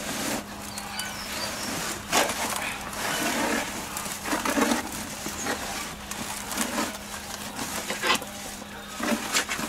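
Tools and gloved hands raking and scratching old soil out of a large Scots pine bonsai's root ball, with irregular crackling and scraping as roots and substrate are pulled loose.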